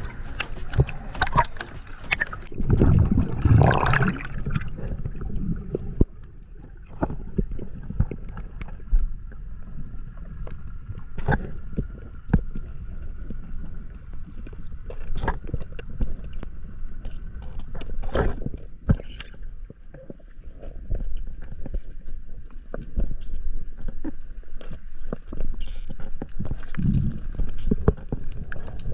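Seawater splashing loudly over the camera at the surface for about the first four seconds, then muffled underwater sound with scattered sharp clicks and a faint steady hum.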